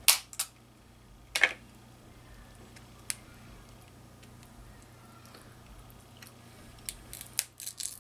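Snow crab leg shells cracking and being picked apart while eating, heard as scattered short sharp cracks and clicks. A few come in the first second and a half, one about three seconds in, and a quick run of them near the end, with quiet gaps between.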